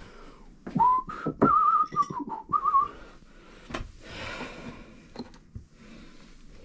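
A man whistling a short, wavering tune for about two seconds, starting just under a second in. A few sharp clicks and knocks of parts being handled come through it and after it, with a brief hiss near the middle.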